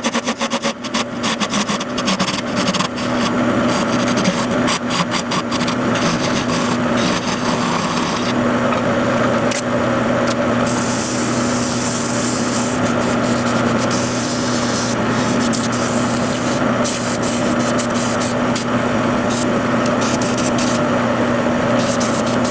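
Wood lathe running with a steady motor hum while a hand-held turning tool cuts and scrapes a spinning ipe hardwood blank, with a hissing rasp of the cut rising for a few seconds near the middle.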